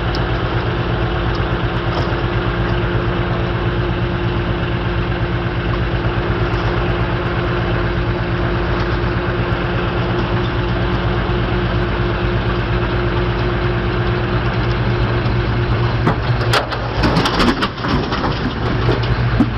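Heavy vehicle's engine running steadily, with a burst of crashing and clattering about three seconds before the end.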